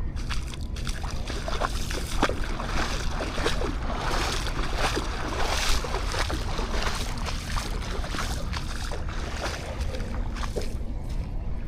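Sea waves washing up and fizzing on the shore, swelling toward the middle and fading near the end, over a steady low rumble of wind on the microphone.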